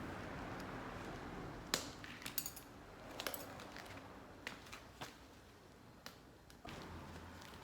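Light metallic clicks and clinks, a handful spread over several seconds, from long flat Korean metal chopsticks and a long metal spoon being handled.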